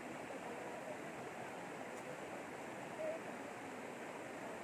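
Shallow river rushing steadily over rocks in small rapids. One short sound rises briefly above it about three seconds in.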